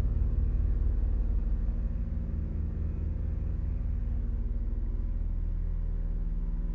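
Electronic drone music: a deep, rapidly pulsing bass with a cluster of steady low tones held above it.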